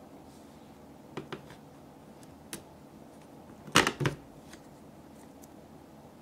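Small plastic slime barrels clicking and knocking on a plastic tray as they are handled, put down and picked up: a few light clicks, then two sharp knocks close together nearly four seconds in.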